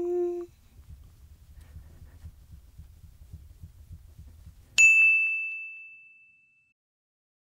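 A single bright bell-like ding sound effect about five seconds in, ringing out and fading over about a second and a half. Before it, a held voice ends just after the start, followed by faint low room rumble.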